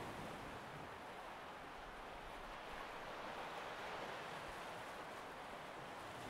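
Steady rushing noise with no distinct events or tones.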